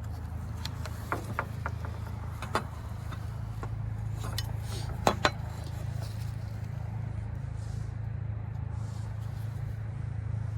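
Scattered light clicks and clinks of hand tools being handled during carpentry work, over a steady low hum; the loudest pair of clicks comes about five seconds in.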